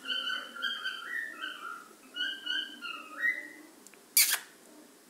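A pet's whistling calls: a run of short clear notes stepping up and down in pitch for about three seconds. A short sharp click follows about four seconds in.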